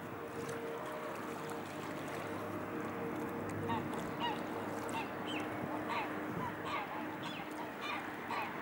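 Waterbirds honking in a quick, irregular run of short calls, about two a second, starting about halfway through, over the steady rush of river water.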